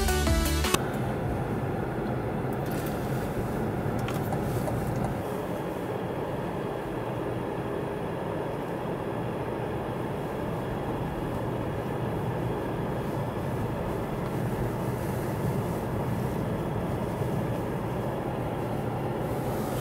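Steady road and tyre noise with engine hum heard inside the cabin of a Cadillac CT5 on the move. Music ends within the first second.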